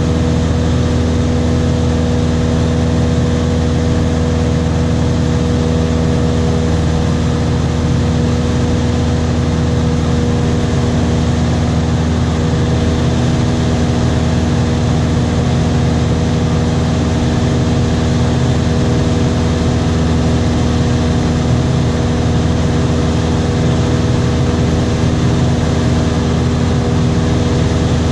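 Single-engine light aircraft's piston engine and propeller droning steadily in level cruise, heard from inside the cabin over a constant rush of air noise.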